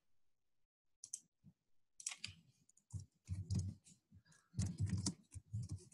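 Faint computer keyboard typing: irregular runs of short key clicks and taps.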